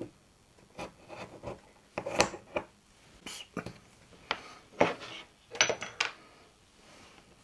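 Irregular clicks, taps and short scrapes of small metal parts being handled and fitted together: an aluminium dust cap with its felt seal and screws.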